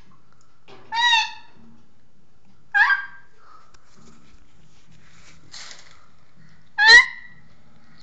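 Young African grey parrot giving three short, harsh, honking calls that rise in pitch, about a second in, near the three-second mark and near the end. These are the repeated food-begging calls of a hand-fed baby grey.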